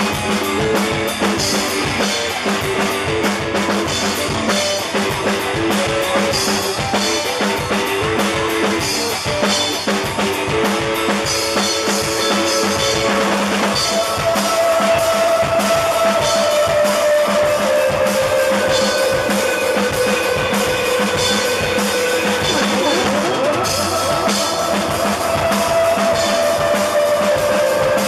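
Live rock band playing in a room: a drum kit keeps a steady beat under electric guitar, and held melody notes come in about halfway through.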